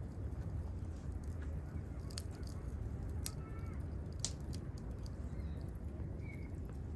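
Campfire crackling: wood popping with sharp snaps, the loudest about two, three and four seconds in, over a low steady rush.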